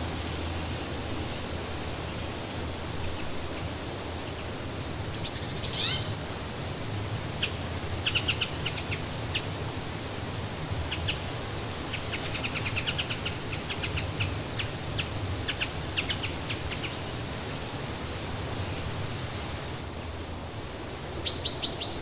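Forest ambience: small birds chirping and trilling over a steady rushing background noise. The chirps start a few seconds in, with fast trills through the middle and a quick run of high notes near the end.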